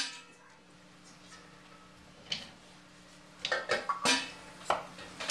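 Sparse kitchen clatter of a knife cutting butternut squash and kitchenware being handled: one click about two seconds in, then a quick cluster of sharp knocks and clinks in the second half, over a faint steady hum.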